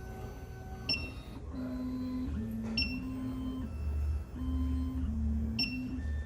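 SEC-E9 computerized key cutting machine's motors running through an automatic calibration step, a steady whine that steps between two pitches as the carriage moves, with a few sharp clicks.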